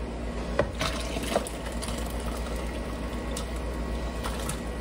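Chicken broth pouring from a tipped stainless steel pot into a plastic colander over a bowl, a steady stream of splashing liquid. A few light knocks in the first second and a half.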